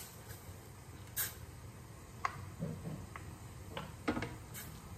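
Wooden spoon stirring sauce in a stainless-steel saucepan, giving scattered light knocks and scrapes against the pan.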